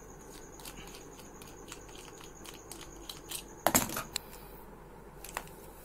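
Light clicks and knocks of plastic containers being handled and fitted together, with a louder clatter a little under four seconds in.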